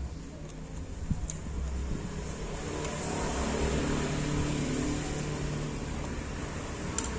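A motor vehicle engine running steadily in the background, growing a little louder around the middle, with a few faint clicks.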